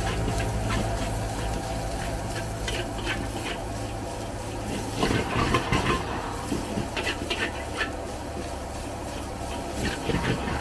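Metal spatula scraping and clanking against a steel wok as fried rice is stir-fried, in several short runs of quick strokes, over a steady low hum.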